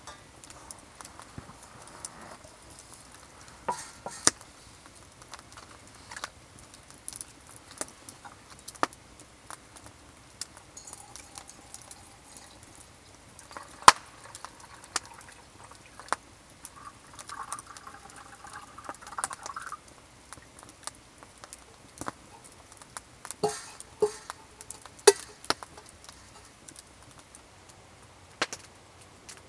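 Clinks and knocks of a metal pot and a stainless-steel cup being handled on a wooden shelf, with water poured from the pot into the cup partway through.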